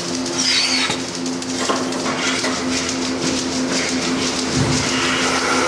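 Milking parlor equipment running: a steady machine hum with a fast, even clicking from the milking units.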